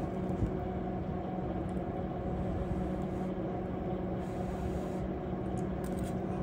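Microwave oven running with a steady electrical hum while it defrosts frozen chicken, with a faint click or two near the start.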